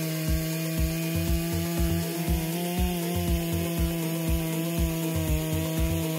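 Husqvarna 3120XP two-stroke chainsaw running at full throttle as it cuts through a large log, its pitch rising briefly a little under halfway through. Background music with a steady beat about twice a second plays underneath.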